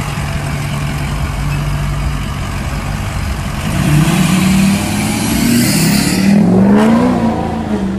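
A motor vehicle engine idling with a steady low note, then revved repeatedly from about four seconds in, its pitch climbing and dropping back between blips.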